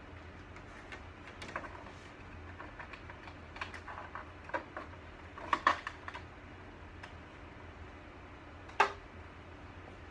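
Scattered light clicks and knocks from hands working on a mobile computer workstation cart's monitor mount, with a cluster around the middle and one sharper, louder knock near the end. A steady low hum runs underneath.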